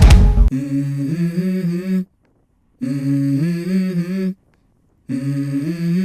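Background music: a rock track with drums cuts off about half a second in. It is followed by three short hummed vocal phrases of a song's intro, with dead silence between them.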